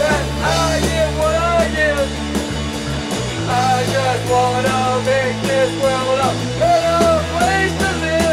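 Rock music: a wavering, gliding melody line over held bass notes, the chord shifting at about three seconds and again near seven.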